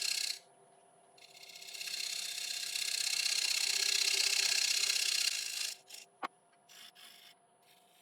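A wood lathe running with a steady whine while a turning tool cuts a dried Monterey cypress bowl at its foot: a short cut ends just after the start, then a long cut builds up for about four and a half seconds and stops. A sharp click follows, with a few light scrapes.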